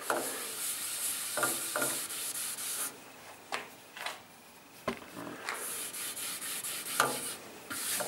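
A cloth damped with petrol rubbed hard over the motorcycle's paintwork to scrub off leftover sticker glue: runs of scrubbing strokes, a pause in the middle, then more scrubbing, with a few light knocks.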